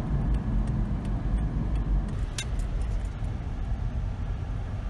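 Car driving, heard from inside the cabin: a steady low rumble of engine and road noise, with a few faint clicks and rattles.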